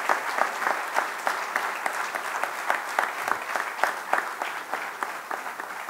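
Audience applauding, many hands clapping at once, the applause slowly dying down.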